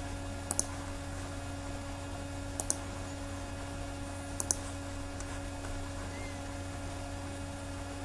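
Computer mouse button clicked three times, about two seconds apart, each click a quick press-and-release double tick, placing polyline points, over a steady low hum.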